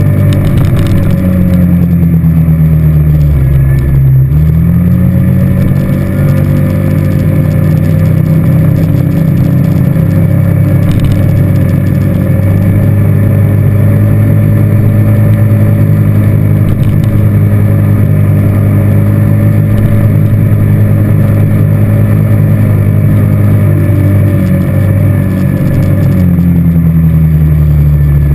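ATV engine running while riding, its pitch falling over the first few seconds and climbing again about four seconds in, then holding steady. Near the end the same fall and rise comes once more.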